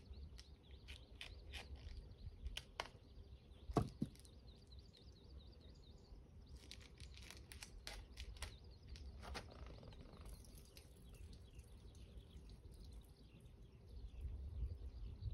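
Light clicks and taps of a plastic food pack being handled, the loudest about four seconds in, over faint bird chirping and a low rumble that rises near the end.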